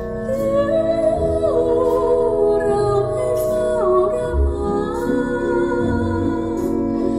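A slow Thai song with a sung melody and bass notes, playing through the car's aftermarket audio system, heard inside the cabin. The system has Morel Virtus front speakers, Morel Maximus rear speakers and an Audison subwoofer, freshly tuned by DSP.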